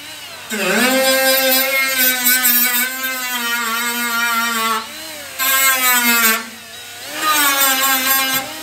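Cordless die grinder with a small abrasive disc running against thin sheet steel, stripping paint: a steady high whine that dips in pitch as the disc bites about half a second in, then runs in three spells with two short pauses.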